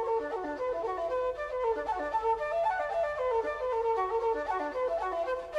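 Background music: a flute playing a quick, lilting melody of many short running notes, in an Irish traditional style.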